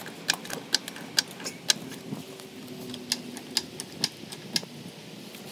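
A series of short, sharp mechanical clicks, roughly two a second and fairly evenly spaced, over a faint background hum.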